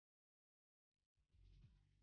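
Near silence: the sound drops out entirely for about the first second, then a faint low rumble comes in.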